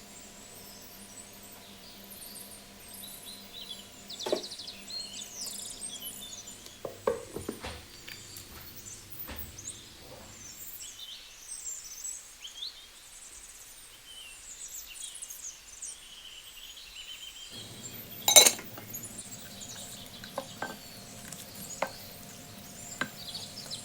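Kitchen dishes and utensils clinking and knocking now and then, the loudest a sharp clack about eighteen seconds in, over a low steady hum and faint high chirps.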